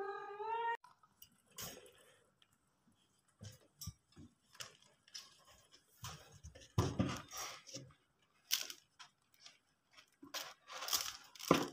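Irregular scraping, crunching and clicking of a cat shifting about in a wire cage beside a litter tray of pellet litter, with a brief wavering cry in the first second.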